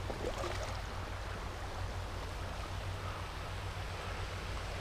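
Shallow river water running over a gravel riffle: a steady rushing, with a low rumble underneath.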